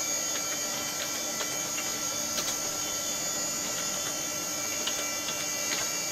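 Steady electrical hum and whine from running computer equipment, several fixed tones, with faint scattered key clicks as a DOS command is typed on the keyboard.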